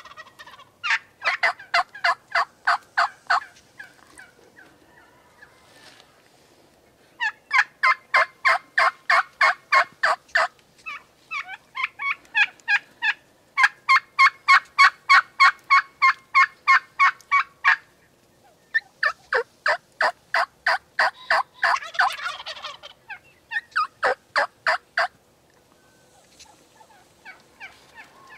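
Turkey yelping: repeated runs of rapid, evenly spaced notes, about four a second, each run lasting a few seconds with short pauses between. The longest and loudest run comes about halfway through.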